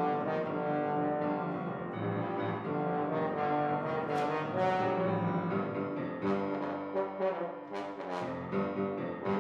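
French horn playing a sustained melody, much of it in its low range, with piano accompaniment.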